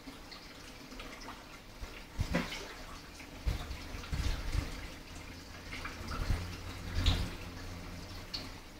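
Aquarium air stone bubbling in the tank water, with several dull low thumps, the loudest about seven seconds in.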